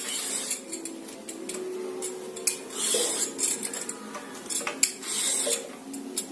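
Metal hand peeler scraping the skin off a yellow cucumber in repeated strokes, with metal clinking against a stainless steel plate.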